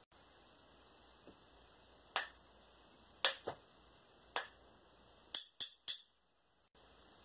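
Pinfall count made by hand as a sound effect: three sharp slaps about a second apart, the middle one followed at once by a lighter second tap, then three quick slaps in a row near the end.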